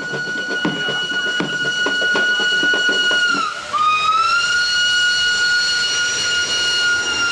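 Steam locomotive whistle of the Nilgiri mountain train: one long steady blast dips in pitch about three and a half seconds in, then swoops back up into a second long blast. Regular thumps, about one and a half a second, sound under the first blast.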